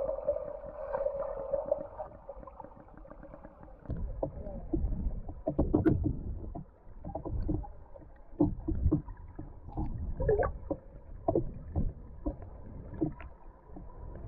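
Water heard through a submerged camera, muffled: a steady hum for the first couple of seconds, then irregular low knocks, thuds and gurgles of water moving as a swimmer passes.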